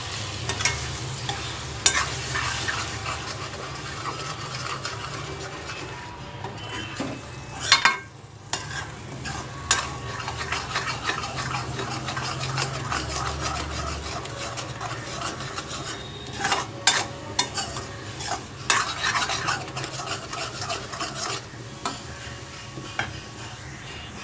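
Steel spoon stirring and scraping egg and minced mutton around a metal kadai, with a frying sizzle underneath. The spoon clacks against the pan again and again, loudest about a third of the way in.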